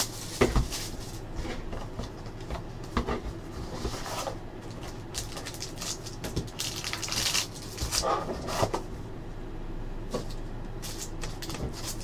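Cardboard trading-card box being handled and opened: the inner box slid out of its sleeve, with cardboard scraping and rustling and scattered light knocks as it is set on the table and opened.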